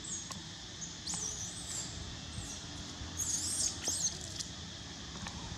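Baby long-tailed macaque squealing: several short, high-pitched calls that waver up and down in pitch, coming in clusters and loudest about three to four seconds in.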